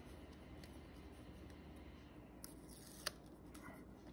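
Near silence with faint handling of cardstock pieces: light paper rustles and one small click about three seconds in.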